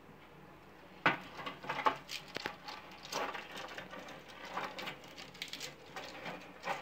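Metal spoon stirring halved cherry tomatoes in oil in a stainless steel pot. The spoon makes irregular clinks and scrapes against the pot, starting about a second in.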